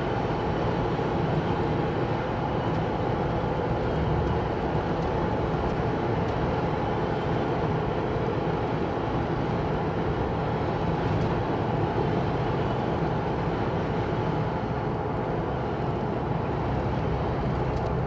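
Steady cabin noise inside a 2021 Ford Bronco two-door hard top cruising at about 45–50 mph: a constant road and drivetrain hum that measures about 63–64 dB(A) in the cabin.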